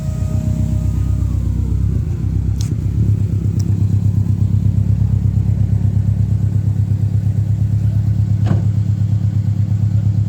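Subaru engine running at low revs while the car reverses, with an evenly pulsing, throbbing exhaust note that grows a little louder about two and a half seconds in. A faint whine fades out in the first second or so, and there are a couple of brief clicks.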